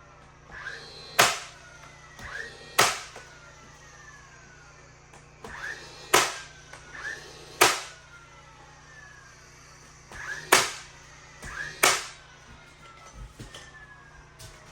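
Background music with sharp, whip-like percussive cracks that come in pairs at a slow, even beat, each crack led by a softer swell.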